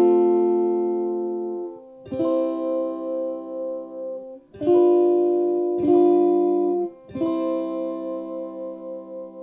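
Flight Vanguard solid-body tenor electric ukulele played through an amp with a completely clean signal and no effects: five chords, each strummed once and left to ring.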